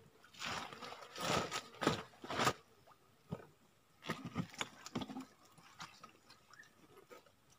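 Handling noise from a woven plastic sack and a wire-mesh fish trap: several rustling bursts in the first two and a half seconds, then scattered knocks and clicks.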